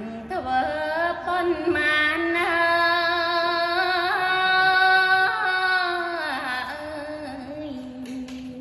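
A woman's solo voice chanting Khmer smot, the melismatic Buddhist devotional recitation, drawn out in one long ornamented phrase. It swells to its loudest around the middle and steps down in pitch, easing off near the end.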